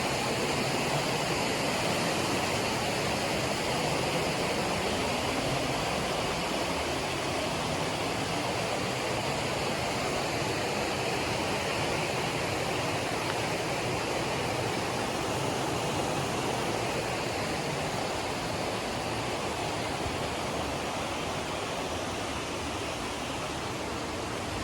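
Steady rush of fast-flowing mountain water, an even, unbroken hiss with no pauses.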